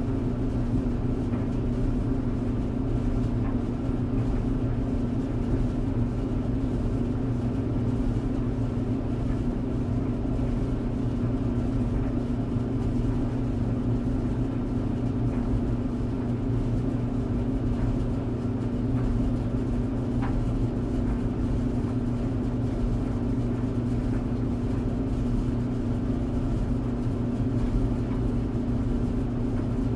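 A tumble dryer running with a steady, even hum from its motor and turning drum.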